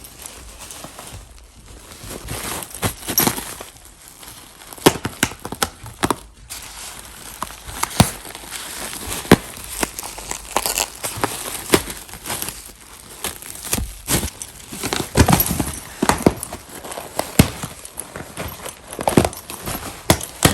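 Plastic packaging air cushions crinkling and rustling while a dog bites and tosses them, with many sharp, irregular crackles and snaps.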